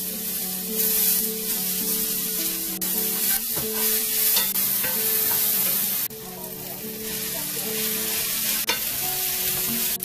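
Chopped green onion, onion, potato and eggplant sizzling in a hot oiled pan as they are stir-fried with a wooden spatula, with a few clicks and scrapes of the spatula against the pan. Soft guitar music plays underneath.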